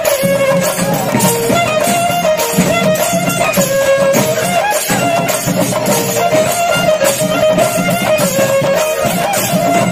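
Traditional temple music: a double-reed pipe plays a continuous, wavering, ornamented melody over steady drumming.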